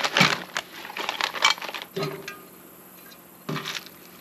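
Clear plastic packaging crinkling and rustling as it is handled, with a few light clicks. Most of it comes in the first second and a half, then it falls to a few short, fainter sounds.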